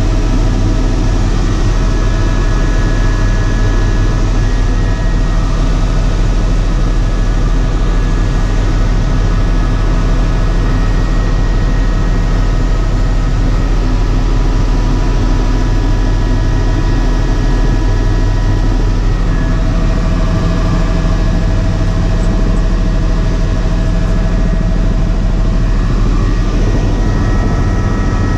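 Helicopter in flight heard from inside its cabin: a steady, loud drone of rotor and engine, with faint steady whining tones above it.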